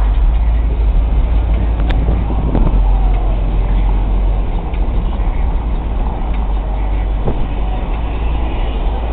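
Ford Crown Victoria driving slowly through city streets, heard from inside the car: a steady, deep rumble of engine and road.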